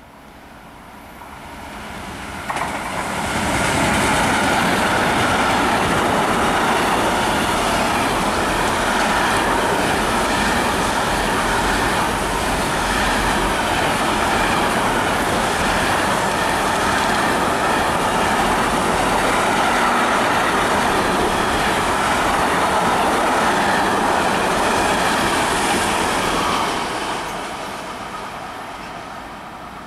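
Intermodal freight train of semitrailers on pocket wagons passing at speed: the rumble and wheel-on-rail noise build over the first few seconds as the locomotive arrives, hold steady for about twenty seconds as the wagons go by, then fade near the end.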